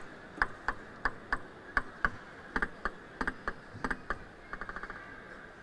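Table tennis rally: the ball clicks back and forth off rackets and table, about three hits a second. Near the end it falls dead and bounces to rest in a quick run of ever closer, fading bounces.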